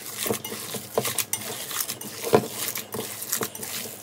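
A hand kneading raw minced meat mixed with chopped onion in a stainless steel bowl: irregular soft slaps and squishes, about three or four a second.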